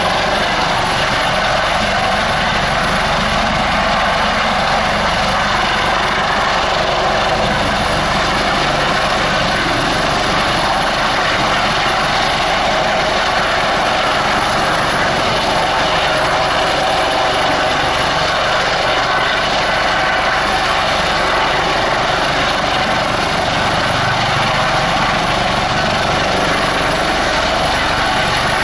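Eurocopter AS365 N3+ Dauphin twin-turbine helicopter in a low hover, its main rotor and Fenestron ducted tail fan running at a steady, loud level with a constant tonal whine over the rotor noise.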